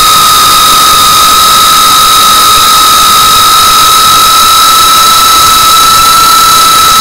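GEPRC CineLog35 3.5-inch FPV drone's brushless motors and propellers whining steadily in flight over a loud rushing hiss. The pitch rises slightly about six seconds in.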